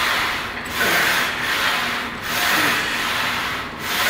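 A rasping noise swelling and fading about every second and a half during a set of Smith-machine bench presses.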